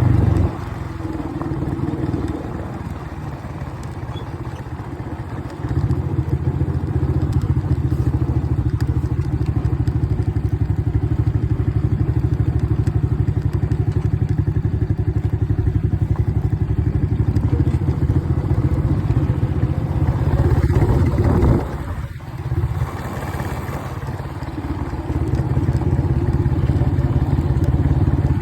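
ATV engine running while riding. It eases off just after the start, picks up again about six seconds in, and has a brief lull about twenty-two seconds in before pulling again.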